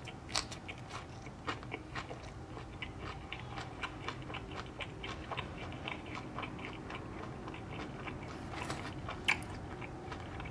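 Close-up chewing of a crispy panko-breaded fish sandwich: a steady run of small crunches and wet mouth clicks, with a few louder crunches about half a second in and again near the end.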